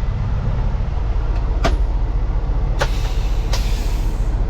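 Peterbilt 379 diesel truck engine idling with a steady low rumble, with two sharp metallic clicks and a short hiss in the second half.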